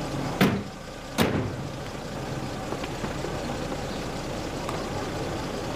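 Steady running of a car engine heard from inside the car, with two sharp bangs less than a second apart near the start.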